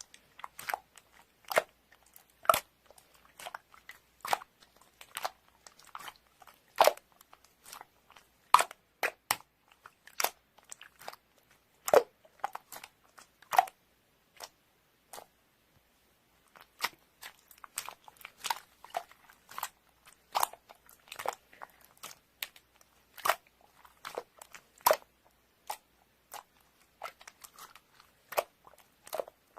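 Close-miked crunching of crisp food being bitten and chewed, in irregular sharp crunches with a pause of about two seconds midway.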